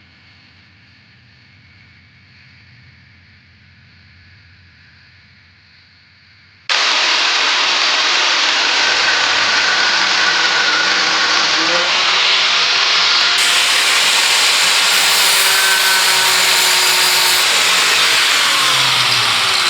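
Faint low hum for the first six or seven seconds, then a power tool suddenly starts working metal loudly and steadily through the rest, as steel brackets for a harness mount are made.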